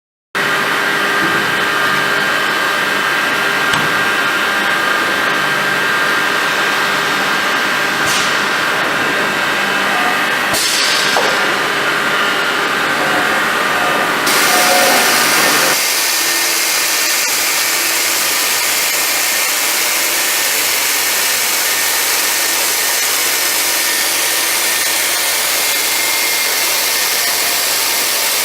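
CNC machine running, its spindle milling an edge: a steady machine noise that starts suddenly just after the beginning. About halfway through it swells briefly, then its tone shifts and it carries on steadily.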